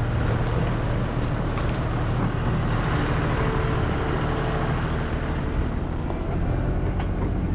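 John Deere 5065E tractor's diesel engine running with a steady low hum as it tows a harvest trailer slowly through the field.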